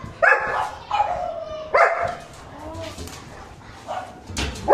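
German shepherds barking in rough play: three loud, sharp barks in the first two seconds, then quieter, shorter barks and a sharp sound near the end.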